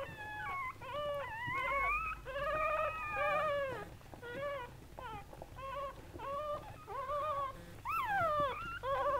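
Newborn Golden Doodle puppy crying: a quick run of short, high squealing cries, about two a second, some rising and falling in pitch.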